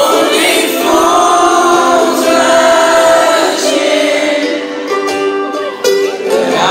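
A man singing live into a microphone while strumming a ukulele, heard through a concert PA system in a large hall.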